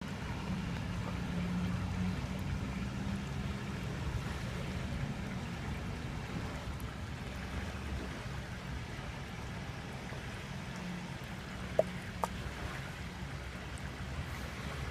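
A steady low hum over a wash of water noise, with two short sharp snaps about twelve seconds in, half a second apart.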